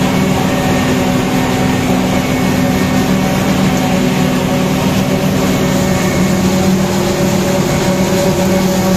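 Tractor engines and a tractor-driven maize forage harvester running steadily under load while chopping maize for silage. The sound is a constant mechanical drone with a dense rushing noise.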